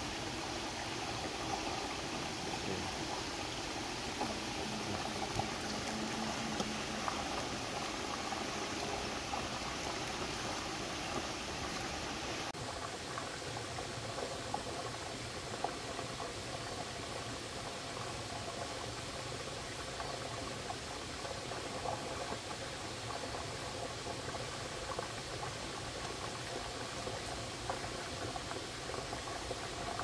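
Small rocky stream trickling over stones: a steady wash of running water with small splashes scattered through it. The sound shifts slightly about twelve seconds in.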